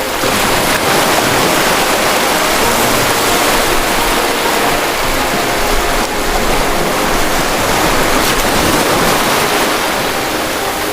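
Ocean waves breaking and washing in: a dense, steady rush of surf that swells and eases slightly.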